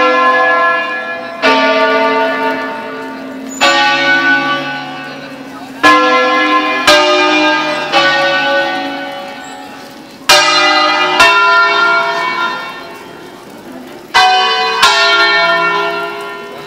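Six church bells (Bizzozero bells cast 1823–1875, tuned to A) playing an automated 'concerto solenne'. Single bells are struck one after another at different pitches, about nine strokes at uneven gaps of one to two seconds. Each note rings on and fades as the next one sounds.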